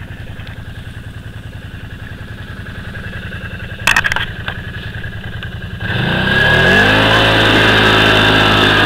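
Can-Am Outlander 500 ATV's V-twin engine running at a low, steady pulse, with a few clatters about four seconds in, then revving up about six seconds in and holding high revs under load as the quad pushes out through deep mud.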